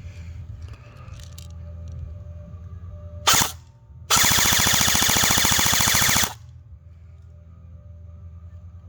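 G&G ARP 9 airsoft electric rifle (AEG) with high-speed 13:1 gears firing: a brief burst about three seconds in, then a rapid full-auto burst of evenly spaced shots lasting about two seconds and cutting off sharply.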